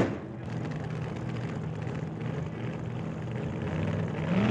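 A 406 small-block Chevy V8 in a drag car. It rises sharply in a rev at the start, then runs at a steady, lumpy idle, with a short rev rising in pitch near the end.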